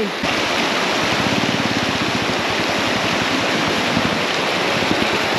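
Shallow, rocky river rushing steadily over stones.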